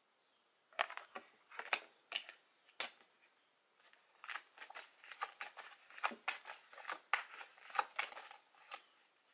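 A deck of oracle cards being shuffled by hand: a quick, irregular run of card snaps and slaps starting about a second in, with a short pause about three seconds in before the shuffling picks up again.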